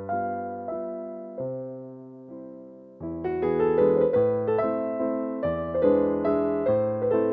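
Background piano music: a few notes left to fade for the first three seconds, then fuller, louder chords from about three seconds in.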